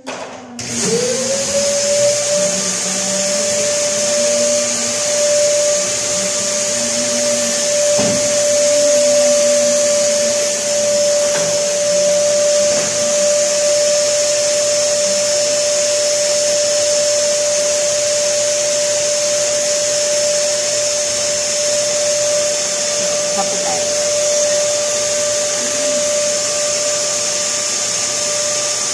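Canister vacuum cleaner switched on, its motor rising in pitch within the first second, then running steadily with a high whine over rushing air.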